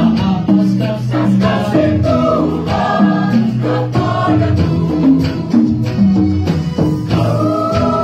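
Mixed church choir singing in harmony, holding several parts at once, over a steady rhythmic accompaniment.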